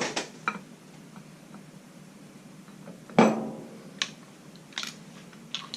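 Metal parts of a power feed being handled as the spring-loaded cam plate is lifted off: a few light clicks and one sharp metallic clank about three seconds in that rings briefly.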